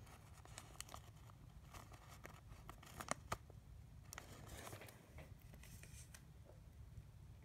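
Near silence with faint light clicks and rustles of a trading card being handled and slid against a plastic penny sleeve, a couple of slightly sharper clicks about three seconds in.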